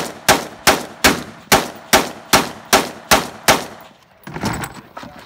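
Semi-automatic rifle fired in quick, steady succession, about ten shots at roughly two and a half a second, each with a short echo. The shots stop about three and a half seconds in, followed by quieter knocking and rustling as the rifle is lowered.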